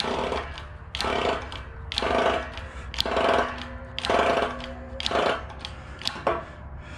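Hand-pumped hydraulic bottle jack of a shop press being worked in six even strokes about a second apart, each with a short squeak, pressing a tapered roller carrier bearing down onto a differential carrier.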